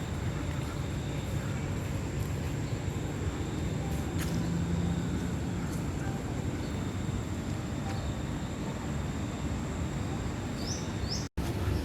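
Steady outdoor background noise, mostly a low rumble, with a faint high whine running through it; the sound drops out for an instant near the end.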